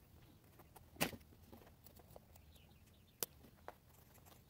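Scissors snipping fabric: a few sharp, separate clicks, the clearest about a second in and two more after three seconds, with faint ticks between.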